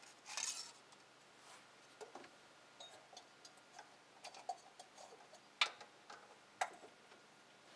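Light scattered clicks and taps of a new Fram Tough Guard oil filter being screwed on by hand under a car, with a short rustle near the start and two sharper clicks about a second apart in the second half.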